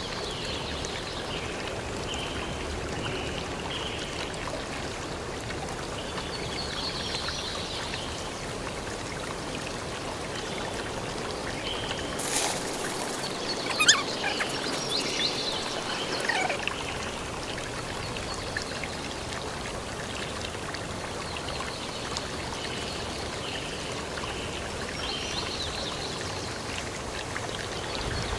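A steady rushing hiss throughout. About halfway through comes a few seconds of scraping and sliding as wet concrete is tipped from a wheelbarrow into a post hole, with one sharp knock.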